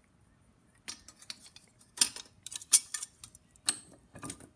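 Irregular light metallic clicks and taps of small metal parts as an Edison Diamond Disc reproducer assembly is handled and set down on steel vise jaws. They start about a second in and are densest and loudest around the middle.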